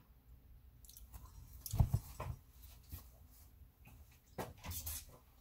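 A few scattered soft knocks and taps, with quiet handling noise between them.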